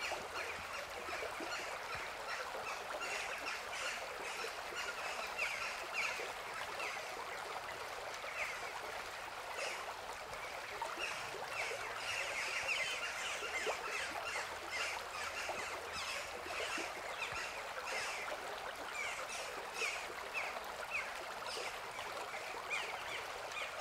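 A shallow stream flowing over stones: a steady rush of water with many quick gurgles and bubbling plinks over it.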